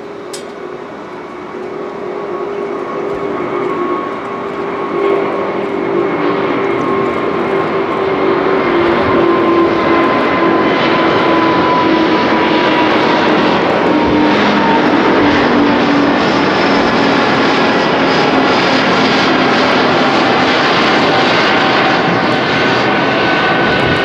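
Airbus A350-1000's two Rolls-Royce Trent XWB turbofans running at takeoff thrust as the airliner climbs out. The roar grows louder over the first several seconds and then holds steady, with engine tones sliding slowly down in pitch.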